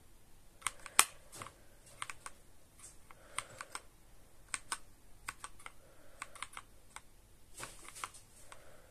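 Keys of a Marvo KG962 mechanical keyboard with red Outemu linear switches being pressed in scattered, irregular keystrokes, the loudest about a second in.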